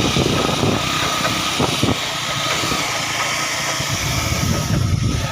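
A vehicle's engine running while driving over a rough dirt road, with an irregular low rumble of the road under it.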